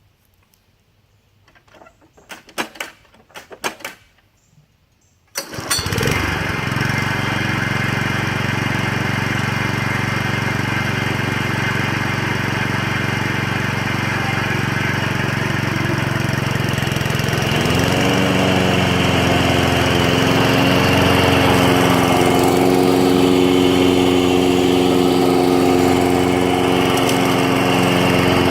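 A few scattered knocks and clicks, then about five seconds in the Toro mower's 5 hp Suzuki four-stroke OHV engine starts up abruptly and runs steadily. Partway through, its note rises slightly and settles a little higher.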